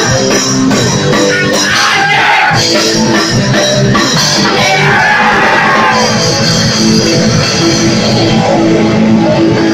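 Live band playing loud heavy rock: electric guitar and drum kit with cymbals.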